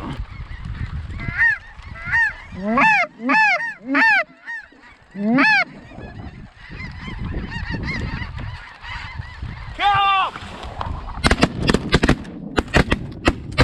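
Snow geese calling: a string of short honks that rise and fall in pitch through the first half, with another around ten seconds in. Near the end comes a rapid volley of about ten shotgun blasts.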